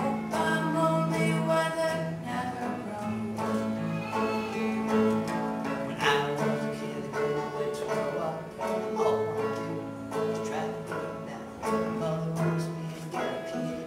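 Acoustic guitar and banjo played together in a live folk song, the guitar strummed under the plucked banjo.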